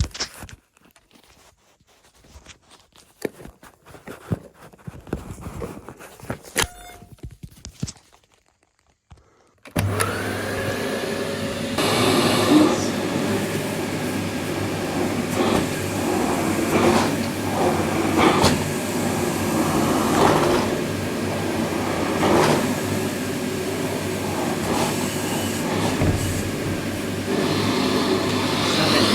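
Dyson CY23 Cinetic Big Ball cylinder vacuum cleaner: a few clicks and knocks of handling, then about ten seconds in the motor switches on with a rising whine and settles into a loud, steady run with brief surges in the sound.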